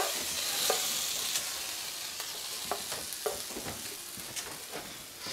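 Chicken pieces sizzling in a frying pan, with a few light clicks and scrapes of a utensil against the pan; the sizzle slowly fades.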